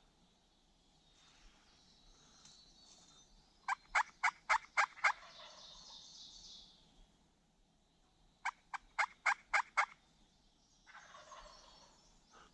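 Turkey yelping: two runs of about six sharp, evenly spaced notes, each run about a second and a half long and a few seconds apart.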